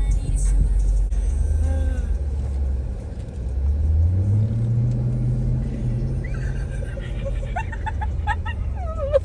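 Jeep Grand Cherokee Trackhawk's supercharged 6.2-litre V8 running with a low note, heard from inside the cabin. It rises in pitch about four seconds in as the engine is revved, holds for a couple of seconds, then eases back.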